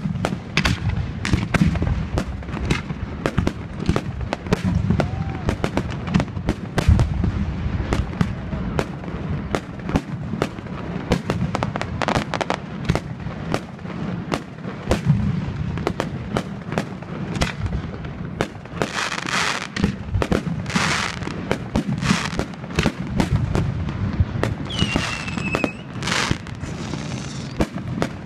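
Fireworks display: a dense run of rapid bangs and crackles over a low rumble. About two-thirds of the way through come several short hissing bursts, and near the end a couple of high whistles that drop slightly in pitch.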